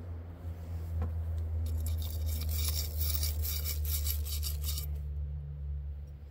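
Small wire brush scrubbing a chainsaw's metal exhaust deflector, rapid back-and-forth strokes that start about a second and a half in and stop near the end. A steady low hum runs underneath.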